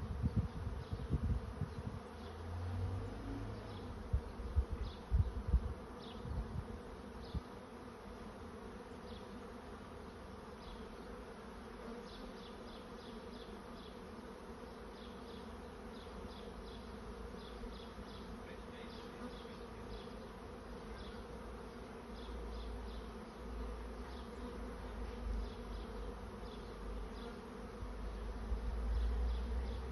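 A swarm of honey bees flying in the air, a steady mass buzzing hum. Low rumbling comes and goes on the microphone in the first few seconds and again near the end.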